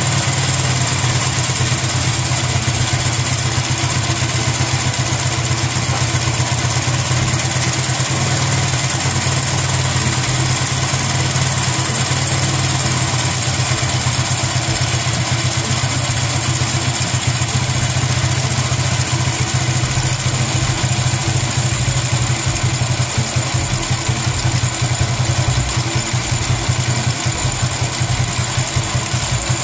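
Honda MD90's 90 cc single-cylinder four-stroke engine idling steadily while its carburetor adjusting screw is turned with a screwdriver to tune the mixture.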